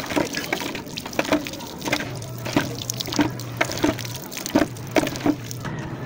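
Water splashed by hand onto a motorcycle's front brake caliper, in repeated splashes and drips a few tenths of a second apart. A steady low hum joins about two seconds in.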